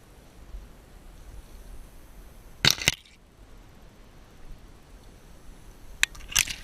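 Two sharp shotgun shots in quick succession about two and a half seconds in, then a few fainter sharp cracks near the end.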